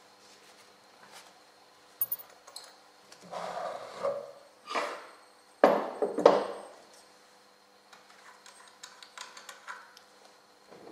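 Metal lathe parts being handled on a wooden baseboard: a click, scraping and sliding, then two loud knocks a little over half a second apart, followed by light rattling.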